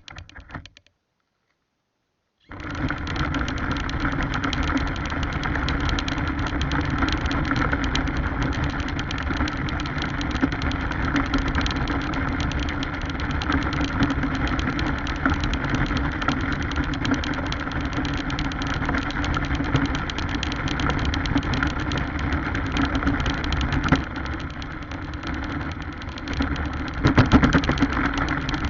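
Radio-controlled car running: its motor and drivetrain whirring steadily, with the rough noise of the car driving over the ground. It starts abruptly about two and a half seconds in and gets louder briefly near the end.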